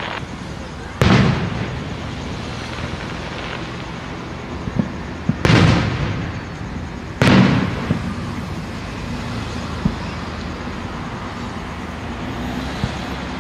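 Aerial fireworks bursting: three loud booms, about a second in, about five and a half seconds in and shortly after, each echoing for about a second, with a few smaller pops between them.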